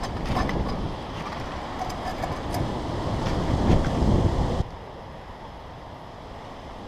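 Strong wind gusting over the microphone as a low, buffeting rumble that swells and then drops off suddenly about four and a half seconds in, leaving a quieter, steady wind.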